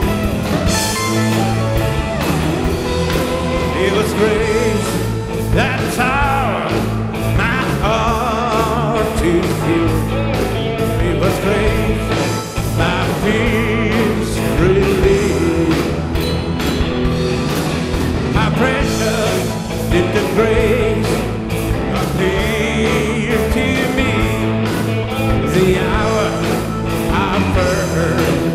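Rock music with a lead singer over a band.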